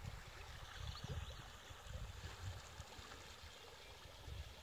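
Storm-swollen creek flowing over its banks, a faint steady rushing of floodwater, with a low rumble coming and going underneath.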